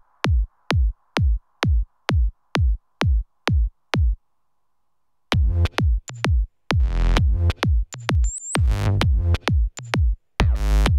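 Electronic dance music on a drum machine: a kick beat about twice a second, which breaks off for about a second and then returns with fuller synth layers.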